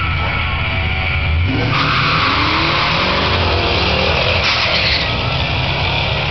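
Two Ford Mustang V8s held at high revs on the drag-strip start line, then launching about 1.5 seconds in and accelerating hard, their engine notes rising as they pull away. The yellow 2003 GT runs a 4.6-litre V8 through catless X-pipe, shorty headers and Flowmaster 40 mufflers.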